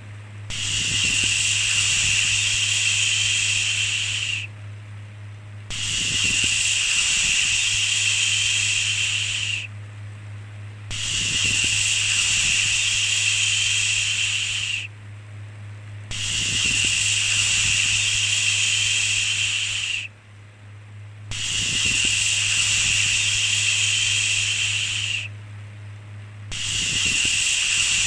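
A repeated 'shhh' shushing sound used as soothing white noise, each shush held about four seconds with a short pause of about a second between, over a steady low hum.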